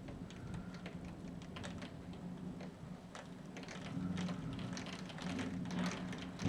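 Raindrops from a thunderstorm tapping on a surface in scattered, irregular light ticks over a low steady hum.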